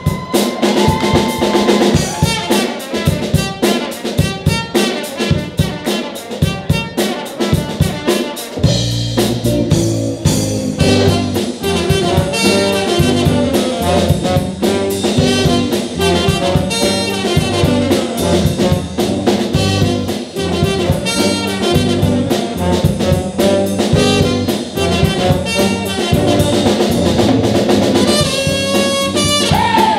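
Live band playing an instrumental jazz-funk tune: trumpet, trombone and saxophone over drum kit and electric guitars. Drum hits and horn notes open it, and a full low end comes in about nine seconds in.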